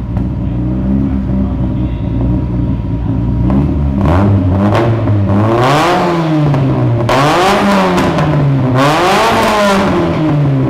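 Nissan S13's newly fitted turbo engine running on its first start through a home-built downpipe and exhaust: it idles steadily, then is revved three times, each rev rising and dropping back.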